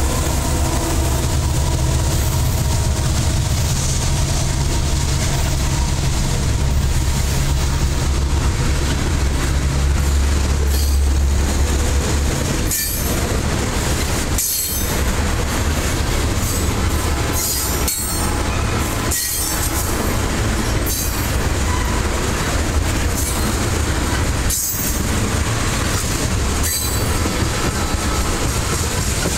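A loaded freight train of ethanol tank cars rolling past close by, with steel wheels running and clicking over the rails and some wheel squeal. The low diesel rumble of the locomotives that have just passed fades out about ten seconds in.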